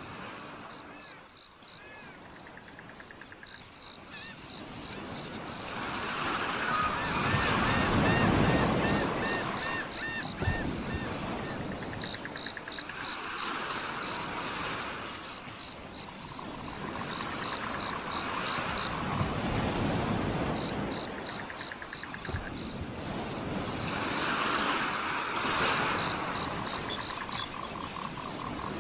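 Waves washing in, swelling and falling back about every six seconds, with rapid trains of high, pulsed chirping calls over them.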